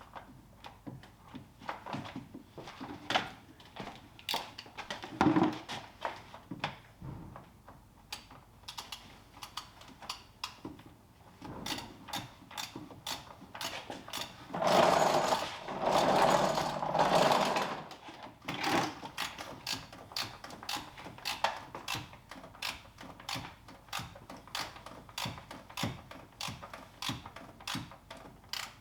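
Hand ratchet clicking in irregular runs of short strokes as the oil filter housing cap is screwed back down, with a louder noise lasting about three seconds about halfway through.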